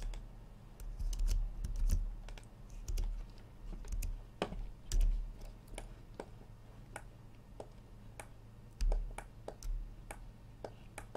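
Computer keyboard and mouse clicking irregularly as someone works at a computer, with a few dull low thumps mixed in.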